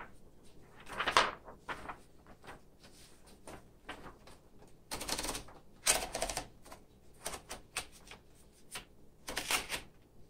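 Sheet of paper being fed into a 1967 Smith Corona Corsair portable typewriter: the paper rustles and slides against the platen in a few short swishes. A run of small clicks comes as the platen knob is turned to roll the sheet in.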